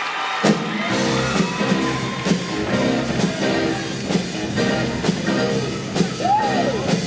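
Show choir's live band starts a rock number about half a second in, playing with a steady beat of about two strokes a second.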